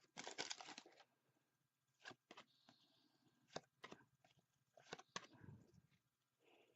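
Faint tearing and crinkling of a trading-card pack wrapper in the first second, then scattered light clicks and rustles of cards being handled.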